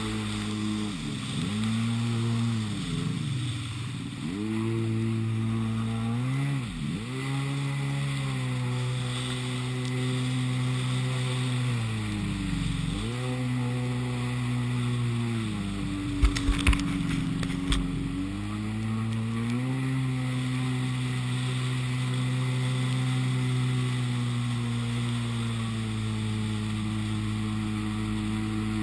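Yamaha Wave Blaster 701 jet ski's two-stroke twin engine running under way. Its revs drop and climb back again several times in the first half, then hold steady. A few sharp knocks come a little past halfway.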